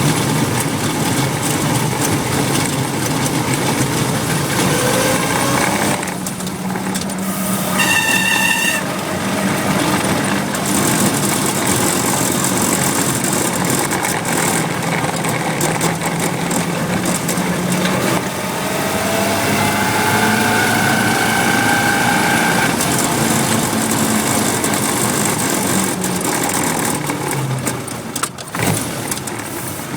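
Willys MB's four-cylinder Go Devil engine running, with a high-pitched squeal from the clutch group coming and going: a short squeal about a quarter of the way in, then a longer one that rises in pitch and holds for several seconds. The owner suspects a failing throw-out bearing, or possibly the pilot bearing in the flywheel.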